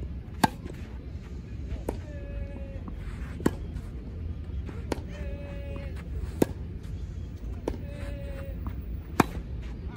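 Tennis ball struck by racquets in a baseline rally. Sharp pops alternate about every one and a half seconds between loud near-side strokes and fainter far-side strokes, seven hits in all.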